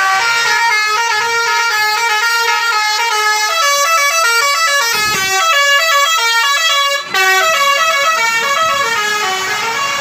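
A bus's basuri musical horn (the 'telolet' horn) plays a fast, stepping melody of horn notes, with a very short break about seven seconds in.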